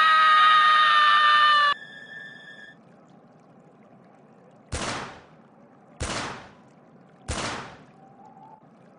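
Three gunshots about a second and a quarter apart, each with a short fading tail. Before them a loud, long, high-pitched held cry or tone cuts off sharply about two seconds in.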